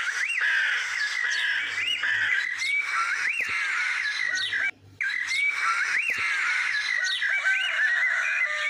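Many birds chirping and calling together in a dense, continuous chorus of short rising-and-falling calls. The sound cuts out briefly a little past halfway, then carries on.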